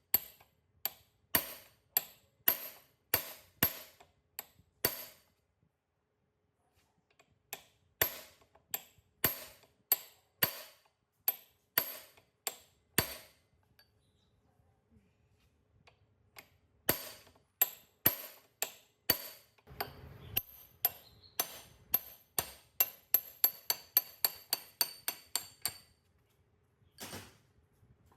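Hammer striking metal repeatedly, each blow ringing briefly. The blows come about two a second in runs broken by pauses, quicken to about four a second near the end, then stop after one last blow.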